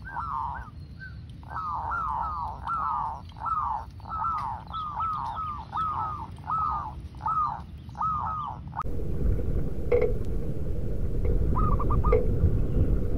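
Zebra dove cooing: a quick string of short notes, each falling in pitch, about two a second. About nine seconds in, the sound changes abruptly to a low rumble, with a few brief coos and clicks through it.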